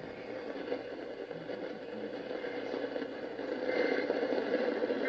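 Steady, rough static from a broadcast radio receiver with no clear tone, a little louder near the four-second mark.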